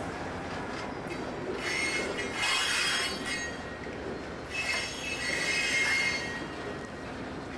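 Freight cars of a slow-moving Southern Pacific train rolling past with a steady low rumble, their steel wheels squealing high-pitched twice, each time for about two seconds.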